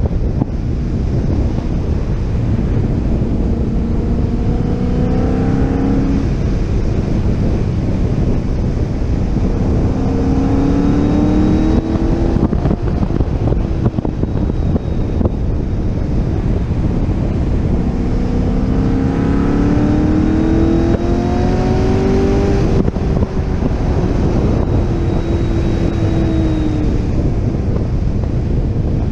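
C6 Corvette Z06's 7.0-litre LS7 V8 under hard acceleration on track. Its pitch climbs in three long pulls, then drops to a lower, easing note near the end. Heavy wind noise on the microphone runs underneath throughout.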